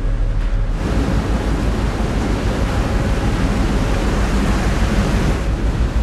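Water churned up by the ferry's wash rushing and splashing against the hull and pier, a loud steady rush over the low rumble of the ship's engines. The rush sets in about a second in and stops shortly before the end, leaving the engine rumble.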